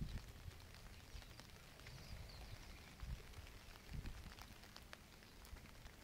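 Faint outdoor ambience over a low rumble: scattered light ticks of dripping water, and a few dull low thumps about three and four seconds in.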